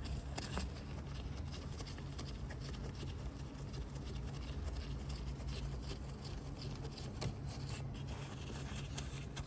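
Faint scraping and small clicks of hands and tools working in an engine bay, over a steady low hum.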